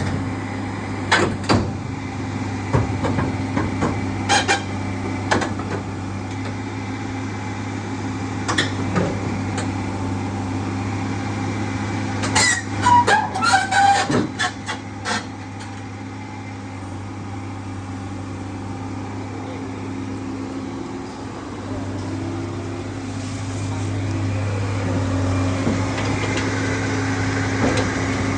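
Crawler excavator's diesel engine running steadily, with sharp knocks and clanks now and then and a cluster of them about halfway through.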